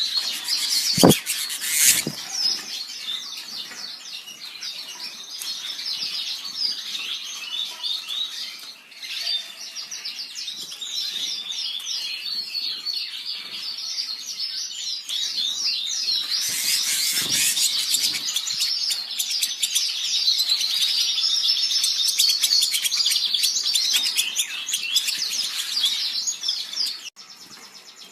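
Many small pet birds chirping and chattering at once in a dense, continuous chorus of rapid high chirps. Two sharp knocks sound about one and two seconds in, and the chorus drops away suddenly near the end.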